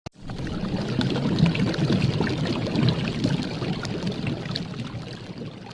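Liquid pouring and splashing with small bubbling clicks, fading out gradually toward the end.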